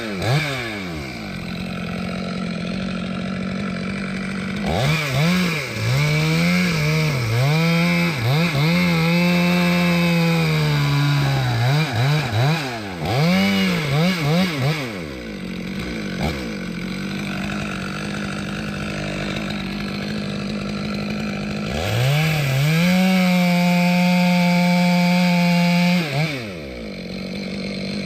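Chainsaw revving, held at full throttle twice for several seconds each, with quick blips of the throttle and stretches of idle between.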